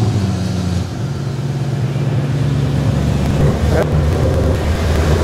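Audi V8 engine in a Porsche Boxster running just after being started, settling from its start-up flare to a steady idle about a second in. A single knock sounds near four seconds in.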